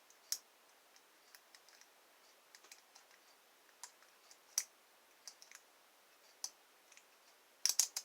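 Faint, scattered small clicks of a lock pick working the pin stack inside a lock, with a quick run of louder clicks near the end.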